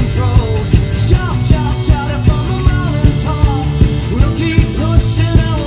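Rock song with a singer over a steady drum beat.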